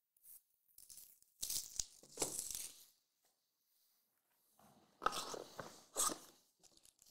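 Cardboard trading-card hobby box being opened by hand: a few short scraping, tearing noises of cardboard as the lid flap is worked loose and pulled up, in two pairs, one a little after a second in and one about five seconds in.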